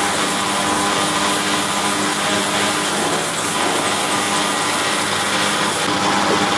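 Automatic milking robot's rotating teat-cleaning brushes scrubbing a cow's teats, over the machine's steady whirring hum, with a few held tones and no breaks.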